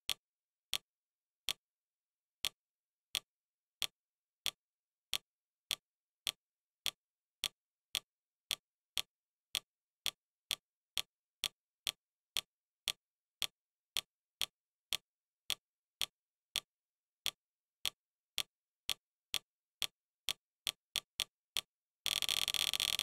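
Fire TV interface navigation clicks, one short tick for each step as the highlight moves down a menu list. They come about one and a half a second, speed up to about three a second near the end, and then give way to a loud buzzing noise.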